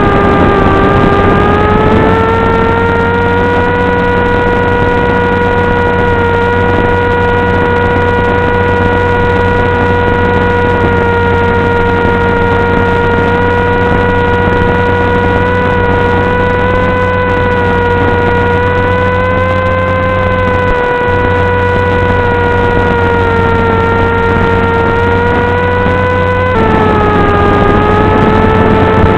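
Electric motor and propeller of an FPV flying wing running at cruise, a steady droning whine that drifts slightly in pitch and steps down suddenly near the end.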